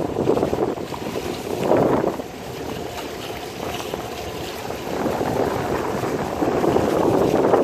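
Wind buffeting the microphone aboard a boat, rising and falling in gusts, loudest about two seconds in and again near the end.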